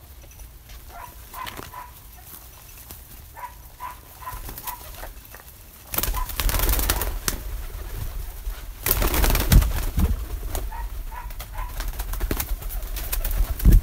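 Pigeons cooing in short repeated notes. About six seconds in, a loud rushing noise with a deep rumble comes in and stays, with a few more coos heard over it.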